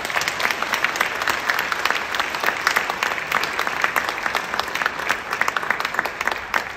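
Congregation applauding in a large church hall: a dense, steady patter of many hands clapping.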